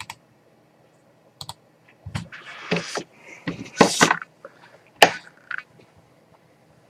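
Irregular clicks and taps on a computer keyboard, busiest in the middle, with one sharp click about five seconds in.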